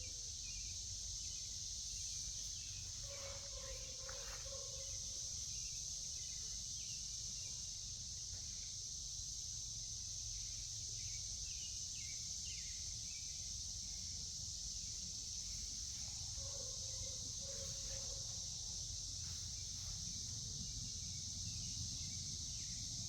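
Steady high-pitched drone of insects with scattered short bird chirps, and a low two-note call heard twice, over a low rumble of wind.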